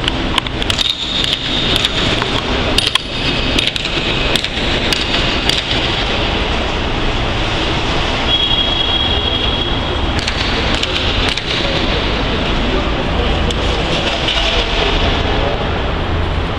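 Renovation work noise in a large sports hall: a loud, steady din with a run of sharp knocks in the first six seconds and a brief high whine about eight seconds in.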